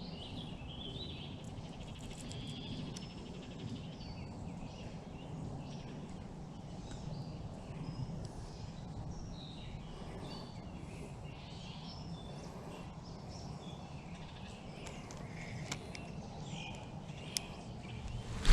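Songbirds chirping and calling in short scattered notes over a steady low outdoor rumble, with a sharp click right at the end.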